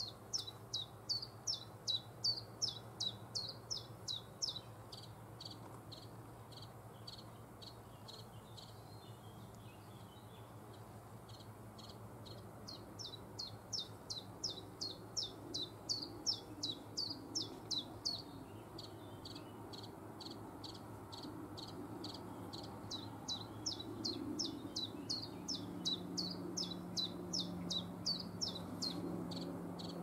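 A small leaf warbler singing: three songs of evenly repeated sharp, high notes, about four or five a second, each lasting several seconds with pauses of a few seconds between.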